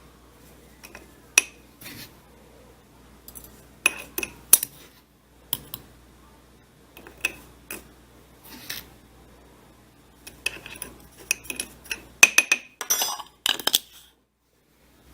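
Scattered clinks and taps of a utensil against a glass jar as mullein flowers and sugar are layered into it, coming thicker and faster in the last few seconds.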